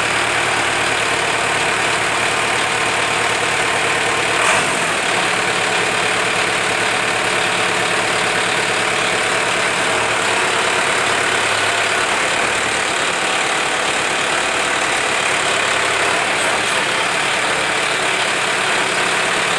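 Belarus MTZ-82.1 tractor's four-cylinder diesel engine idling steadily, freshly reassembled and just started. One brief click sounds about four and a half seconds in.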